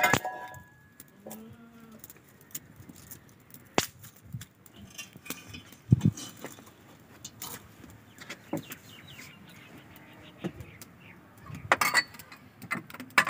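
Dry twigs and sticks being handled and pushed into the firebox of a mud stove, giving a scattered series of sharp clicks and snaps. Faint bird chirps are heard in the background.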